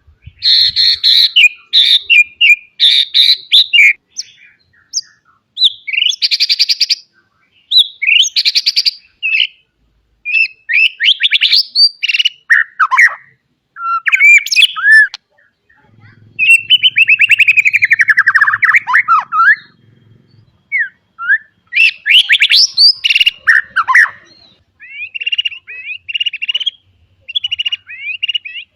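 White-rumped shama singing a long, varied song full of mimicked phrases: loud bursts of rapid trills and quick rising and falling whistles, broken by short pauses, with a long falling slurred phrase about midway.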